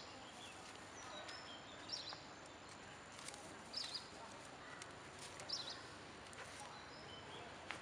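Short high-pitched animal chirps, about four of them spaced a second and a half to two seconds apart, over quiet outdoor background noise.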